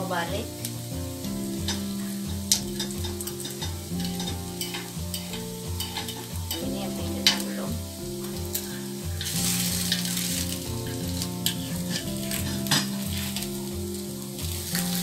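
Serabi batter sizzling in a hot multi-cup metal serabi pan, swelling louder about two-thirds of the way through, with a few sharp clicks of a metal spoon against the pan. Soft background music plays underneath.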